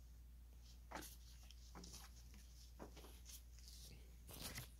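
Near silence with a few faint scattered clicks and rustles: about a second in, near three seconds in, and a short cluster near the end.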